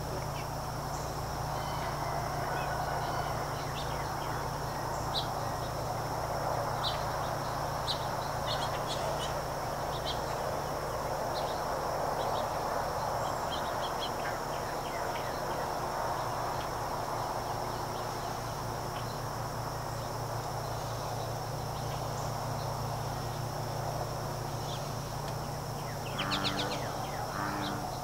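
Outdoor summer ambience: a steady high-pitched insect drone with scattered short bird chirps over a low steady hum. A brief burst of louder pitched calls comes near the end.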